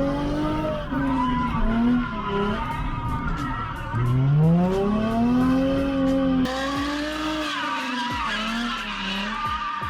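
Drift car's engine revving up and down over and over in second gear, with the tyres skidding as the car slides. The sound changes abruptly about six and a half seconds in.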